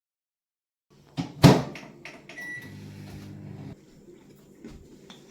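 Microwave oven door shut with a bang, a short beep from its keypad, then the oven running with a low hum for about a second before it stops.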